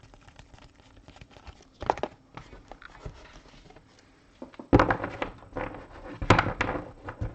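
Trading cards and their box or packs being handled and set down on a table, giving soft thunks and taps: one about two seconds in, and louder clusters about two-thirds of the way through and again near the end.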